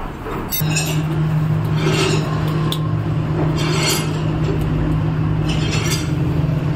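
Knurled tyre-repair hammer striking a rubber patch inside a tyre's sidewall to bed it down, about four strikes roughly two seconds apart. A steady machine hum starts about half a second in.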